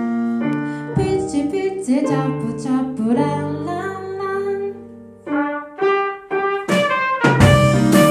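Live band with piano, electric guitar, bass and a trumpet, sax and trombone horn section playing a slow rock ballad; sparse held piano and horn notes thin out briefly, then the full band with drums comes back in loudly near the end.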